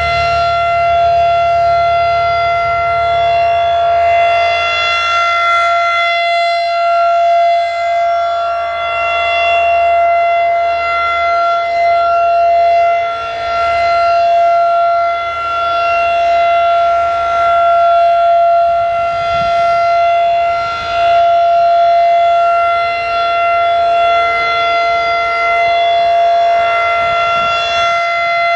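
Federal Signal 2001-DC rotating outdoor warning siren sounding the steady Alert signal: one unbroken tone that swells and fades every few seconds as the siren head turns.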